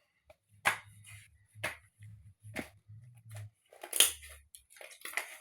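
Homemade slime being kneaded and squeezed by hand, giving short sharp clicks and pops about once a second, the loudest about four seconds in, over a faint low hum.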